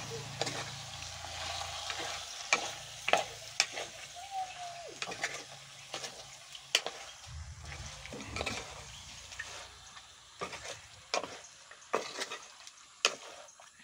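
Wooden spoon stirring chunks of spice-coated pork in a clay pot over a wood fire, knocking against the pot at irregular intervals, with a faint sizzle of the meat frying.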